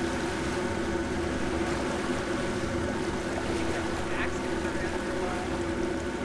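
Boat engine running steadily, a constant low hum.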